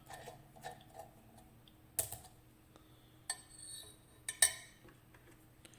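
Metal lock picks and tension wrench being handled at the KABA 14 lock: scattered light metallic clicks and clinks, with a sharp one about two seconds in and the loudest a little past the middle, plus a brief rustle between them.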